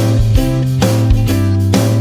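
Background music: strummed guitar over a steady bass line with a regular beat.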